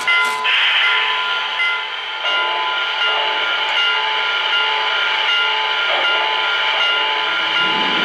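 Lionel 675 O-gauge model steam locomotive running on three-rail track: a steady mechanical run with several held tones over a hissing rush.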